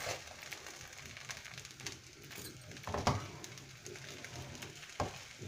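Wooden spatula stirring and scraping half-cooked basmati rice, its liquid fully absorbed, around a wide pan. Faint, with soft knocks of the spatula on the pan, the loudest about three seconds in and another near the end.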